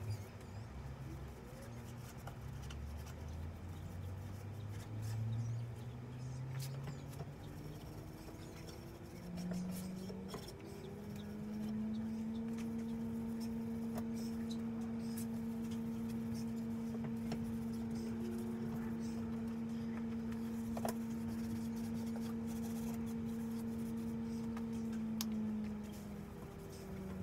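Gloved hand rubbing a pad over a wooden cabinet's frame and panels, working finish into the wood with soft scrubbing strokes and small scratchy clicks. A low steady tone steps up in pitch over the first several seconds, then holds one note for most of the second half and is the loudest sound there.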